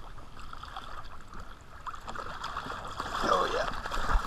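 Water splashing as a hooked black drum thrashes at the surface beside a kayak. The splashing builds through the second half and is loudest at the very end.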